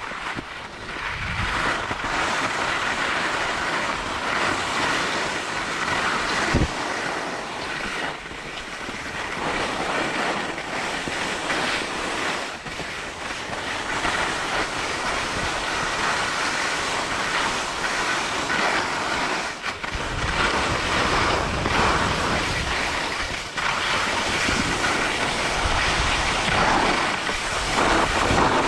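Elan skis sliding and scraping over packed snow during a downhill run: a continuous hiss that rises and falls. Wind buffets the camera microphone with low rumbles now and then.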